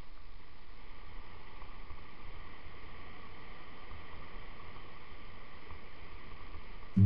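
Steady rush of wind on the microphone and tyres rumbling over a gravel dirt track while riding a mountain bike. Acoustic guitar music starts suddenly at the very end.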